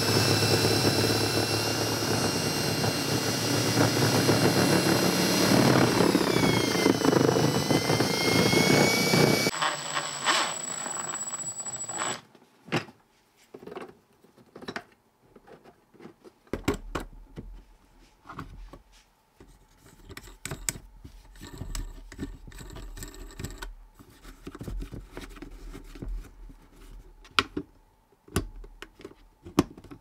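Cordless drill with a step drill bit boring through the sheet-metal wall of a battery box: a steady motor whine whose pitch sags under load a few seconds in, then recovers before the drill stops about nine seconds in. After that, light clicks and knocks of a fitting being handled and pushed into the new hole.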